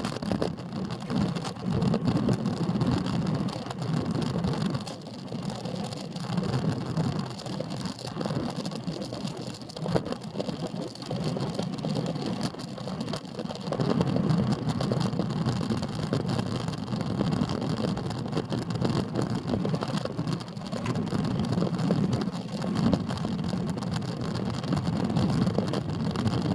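Wind buffeting an action camera's microphone on a road bicycle riding at about 40 km/h, with tyre noise on asphalt; the rumble swells and eases, growing louder about halfway through.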